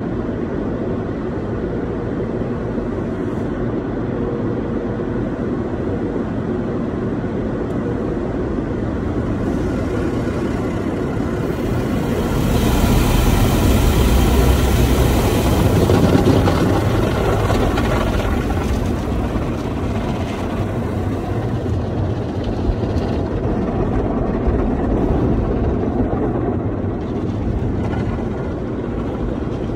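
Automatic car wash heard from inside the car under the glass sunroof: a steady rumble and hiss of washing water and machinery. It swells loudest for several seconds in the middle as water sheets over the roof.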